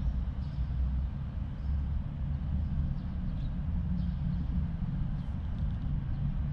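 Steady low rumble of traffic crossing the highway bridge overhead.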